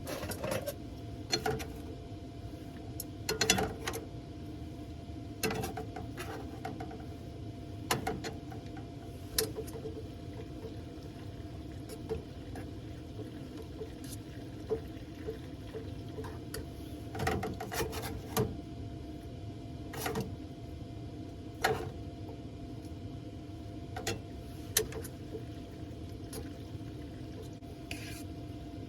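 Cooking utensils and cookware clinking and knocking at irregular intervals over a steady low hum.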